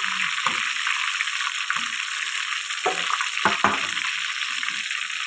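Hot cooking oil sizzling steadily in a frying pan, with a few short knocks and clatters as fried tomatoes and chillies are tipped into a clay mortar.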